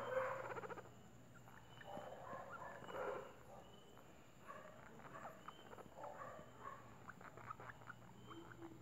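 Guinea pig purring in several short bouts while being stroked: a rapid, faint, buzzing pulsed sound.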